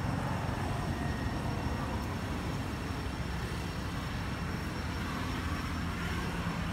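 Steady low outdoor rumble of background noise, with a faint thin high tone held steady above it.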